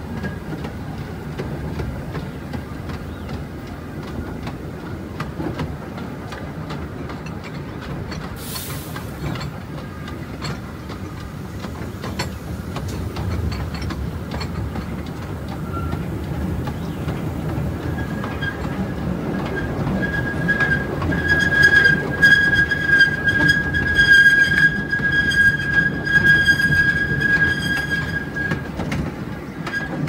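Taipingshan forest railway's small tourist train running on the track: a steady rumble with a run of clicks from the wheels. In the second half a high, steady wheel squeal rises and holds for about ten seconds, then fades.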